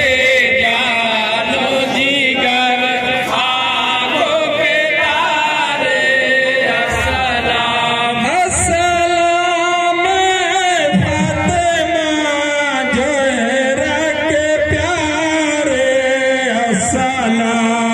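A Muharram lament (noha) chanted and sung by voices, the melody sliding up and down without a break.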